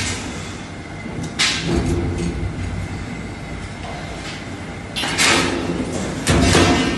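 Brake-lining rivet machine running with a steady hum, setting rivets in three sharp, noisy strokes: a short one about a second and a half in, then two longer ones near the end.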